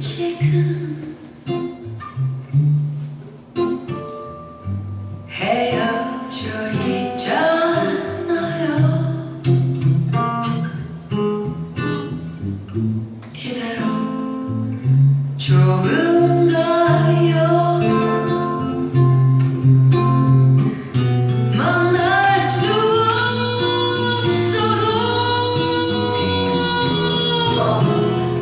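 A song with acoustic guitar and a singing voice; the voice holds long notes that swell near the end.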